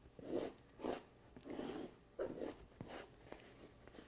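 Shredded potato being put into a bowl of wet shredded zucchini: about five short, soft, wet crunching sounds from handling the grated vegetables.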